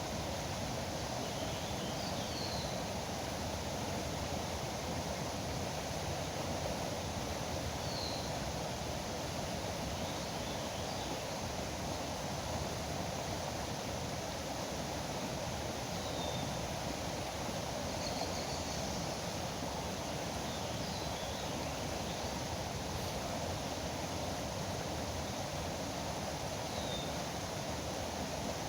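Steady rush of flowing river water, with a few short bird chirps scattered through.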